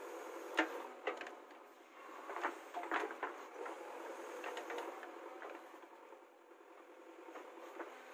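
JCB 3DX backhoe loader digging: the engine running under hydraulic load, with a series of sharp knocks and scrapes as the bucket works through the soil, the strongest about half a second in and a cluster around three seconds in.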